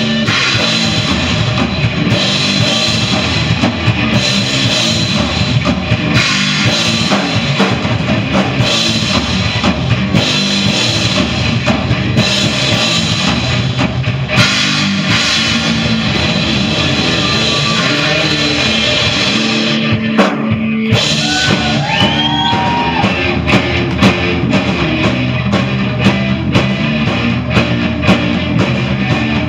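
Rock band playing an instrumental passage on electric guitars and a full drum kit, loud and steady. The band briefly drops back about twenty seconds in.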